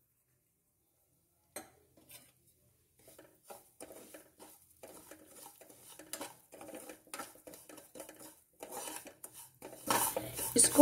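Metal ladle scraping and clinking against a metal kadhai while semolina is stirred and roasted in melted ghee. Irregular light scrapes and taps start about a second and a half in and come thicker and louder toward the end.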